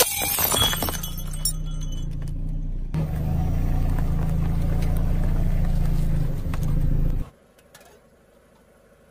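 A stemmed drinking glass shatters under a car tyre with a sharp crack and a second or so of crunching, tinkling shards. A car engine runs steadily underneath as the tyre rolls, then the sound cuts off suddenly about seven seconds in, leaving only faint background.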